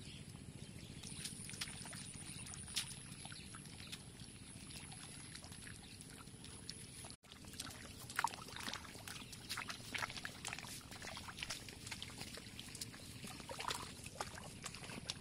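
Sound of a flooded rice paddy during transplanting: from about seven seconds in, a run of small splashes and squelches of water and mud as hands push rice seedlings into the paddy, over a low steady background.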